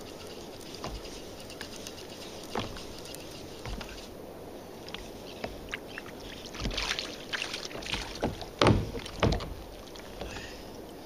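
A small fish being reeled up to a kayak and swung aboard: a steady low hiss, then a run of short clicks and knocks in the second half, with a couple of louder thumps near the end as the fish comes out of the water.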